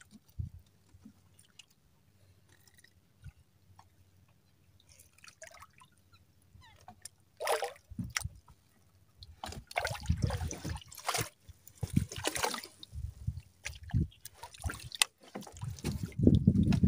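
Water splashing, sloshing and dripping in irregular bursts, starting after several quiet seconds and getting busier in the second half: a freshly caught squid being handled aboard a small fishing boat.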